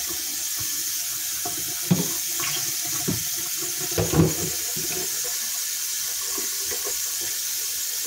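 A steady rushing hiss with the even sound of running water, broken by a few light knocks and thuds about two and four seconds in.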